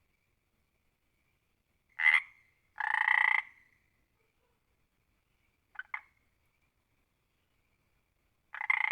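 Frog croaking in separate calls with silence between: a short croak about two seconds in, a longer croak right after it, two very short chirp-like croaks about six seconds in, and another long croak starting near the end.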